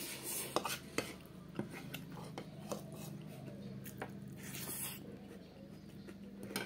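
Metal spoon clicking and scraping against a bowl during eating, a dozen or so separate clicks spread through, with a low steady hum underneath.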